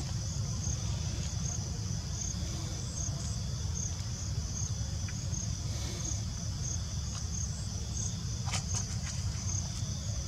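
Insects chirping in a steady high drone with short regular chirps about twice a second, over a steady low rumble. A few sharp clicks about eight and a half seconds in.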